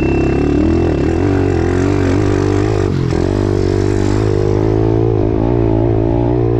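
Kawasaki KLX 110 pit bike's small four-stroke single-cylinder engine running under load on a trail ride, its pitch rising and falling with the throttle, with a brief dip about three seconds in.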